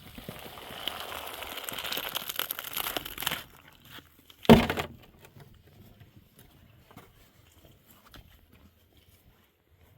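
Rustling, crinkling noise with small clicks for about three seconds, then a single loud thump about four and a half seconds in, followed by faint scattered ticks.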